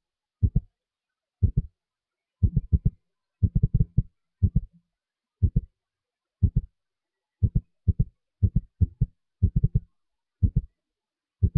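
A regular low thumping beat: a cluster of two to four quick thumps about once a second, with dead silence between the clusters.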